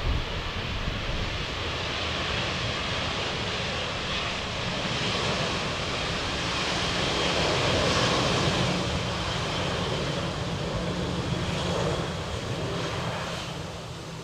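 Airliner engines running as the aircraft passes, a steady rush that swells to its loudest about eight seconds in and then fades.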